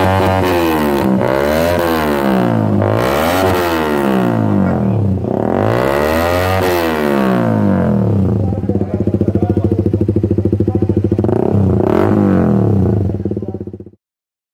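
Honda CBR sport motorcycle with a loud aftermarket racing exhaust, its engine revved up and down several times on the throttle, then running more steadily with one more short blip near the end. The sound cuts off suddenly just before the end.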